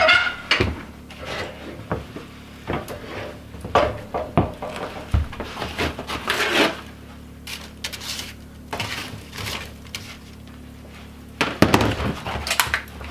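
Irregular clatter and knocks of dishes, utensils and other things being handled on wooden surfaces in a small room, over a steady low hum.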